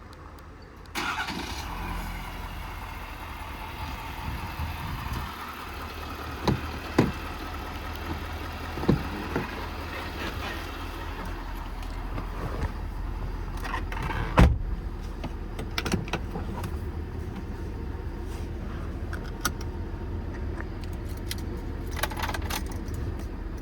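Ford 6.7 L Power Stroke diesel V8 starting about a second in, then idling steadily. Scattered clicks and knocks are heard over the idle, with one loud knock about halfway through.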